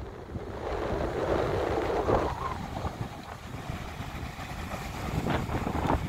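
Wind buffeting the microphone over the steady wash of breaking surf. A louder rush of wind over the first two seconds drops off suddenly.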